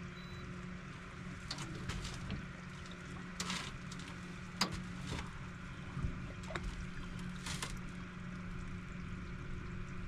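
River water splashing and trickling around a boat, with several short clicks and knocks over a low steady hum.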